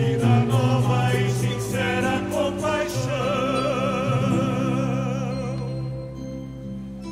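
Choir singing to musical accompaniment, ending on a long held note with vibrato that fades out near the end.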